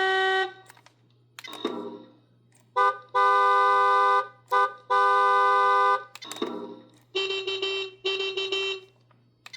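Lionel FEC Vision Line autorack's onboard sound system playing its car-alarm sequence through a small speaker: a brief horn-like blast, then two long horn blasts with short chirps between them, then two warbling alarm tones near the end.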